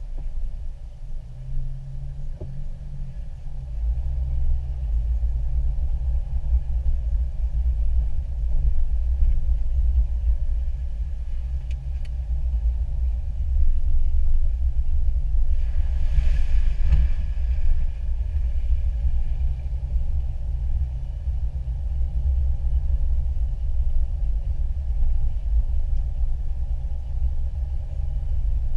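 Off-road 4x4 driving slowly along a rough dirt trail: a steady low engine and drivetrain rumble heard from inside the vehicle, growing louder a few seconds in. About halfway through comes a brief rush of hissing noise.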